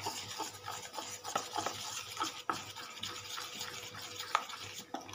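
A steel spoon beating runny lentil-rice batter fast in a steel pot: a quick, steady wet stirring with frequent clicks of the spoon against the pot. The batter is being beaten to make it fluffy, and it is foaming because Eno fruit salt and lemon juice have just been added.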